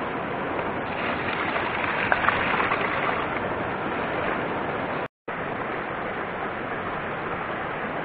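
Shallow mountain stream running over rocks, with louder splashing close by between about one and three seconds in. The sound drops out for a split second a little past halfway.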